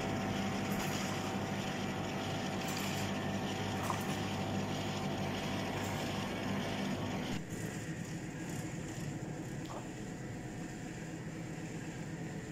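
Fixed-grip double chairlift machinery running with a steady hum of several held tones; it becomes quieter about seven seconds in.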